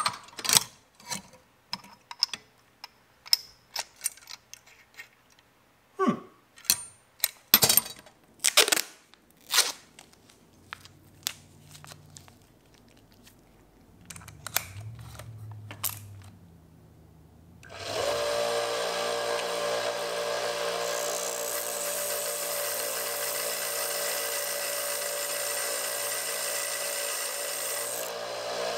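Chrome sockets clinking against each other as they are picked through in a metal tool drawer, followed by two short, faint whirs of a cordless drill. About two-thirds of the way through, a Central Machinery belt sander starts running steadily, with an aluminium rod spun in a DeWalt cordless drill ground against the belt, giving a high-pitched grinding hiss.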